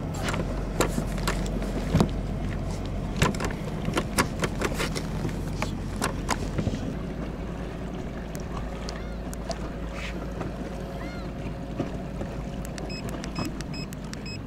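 Small rubber fishing boat on the water: a low-powered outboard's steady low hum, with many irregular sharp knocks and clicks, most frequent in the first half.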